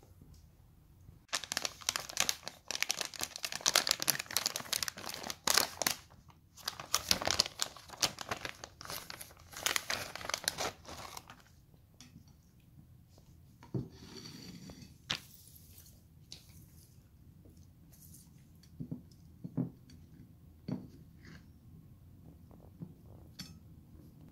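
Plastic food pouch crinkling and tearing as it is opened and the jerky pulled out: about ten seconds of dense, loud crackling. After that come a few soft, separate taps and rustles as the jerky is handled on a glass plate.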